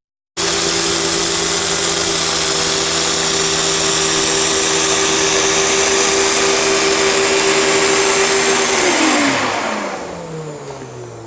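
2003 Hoover TurboPOWER 5000 canister vacuum running steadily at full power, a loud motor with a high whine and steady hum. About nine seconds in it is switched off, and the motor winds down with its pitch sliding lower and the sound fading.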